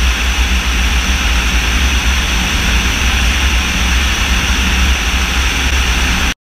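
Rushing airflow over the wing of a Russian Pacer (Orion) combat drone in flight, over the steady low drone of its propeller engine. Cuts off suddenly near the end.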